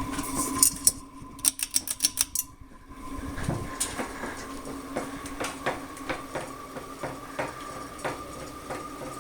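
52-inch Bahama Hugger ceiling fan running with a steady hum and a fainter higher whine, plus clicking. A quick run of sharp clicks comes between about one and three seconds in, then irregular ticks about twice a second.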